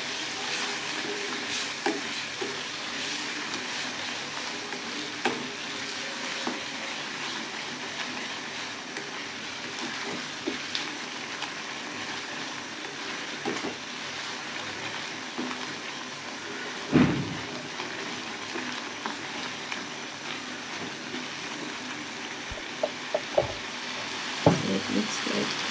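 A pan of cowpea leaves and tomatoes sizzling steadily in oil while it is stirred. Light clicks of the spoon on the pan come now and then, with one louder knock about two-thirds of the way through and a quick run of clicks near the end.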